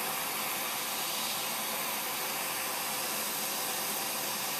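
Small hand-held propane torch burning with a steady, even hiss, its flame heating a U-joint clamped in a vise to melt the plastic retainer inside, which is taken to be urethane.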